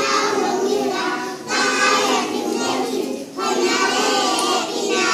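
Nursery-age children singing together in short phrases, with brief pauses about one and a half and three and a half seconds in.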